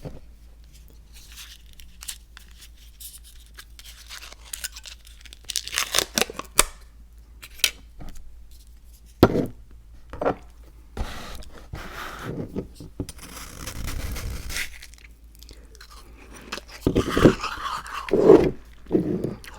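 Close-miked handling sounds in irregular bursts: crinkling and tearing-like rustles, sharp clicks and knocks, and a longer stretch of scraping or grinding about two-thirds of the way through.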